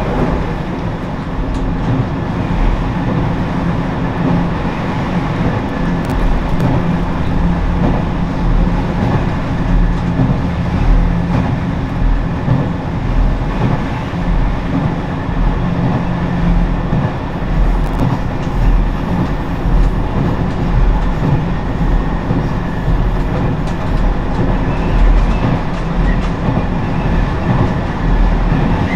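Ise Railway diesel railcar running along the line, heard from inside the car: a steady, loud rumble of engine and wheels on rail with a low, pulsing drone and a few faint clicks.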